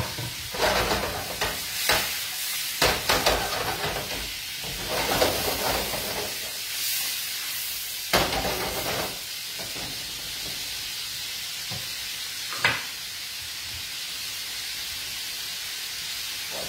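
Prawns sizzling in a frying pan on a gas hob, with a pan being shaken on the burner and clattering during the first half, and one more knock later on.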